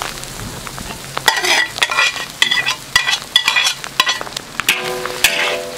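Stir-frying in a large wok: hot oil sizzling while a spatula scrapes and tosses chillies, scallions and salted duck egg, in a run of repeated scrapes from about a second in.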